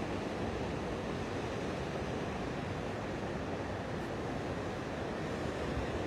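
Rough Atlantic sea: a steady rush of surf breaking over a rocky shore.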